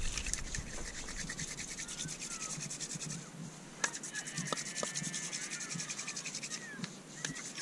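Fire-by-friction hand drill: a hard wooden stick spun back and forth between the palms in a notch in a soft wood board, giving a rapid, rhythmic dry scraping of wood on wood as the friction heats the notch to make an ember.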